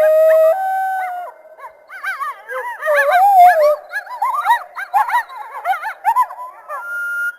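A group of coyotes howling and yipping. A held howl that steps up in pitch opens it, then a chorus of many overlapping short yips rises and falls, ending on a steady, higher howl.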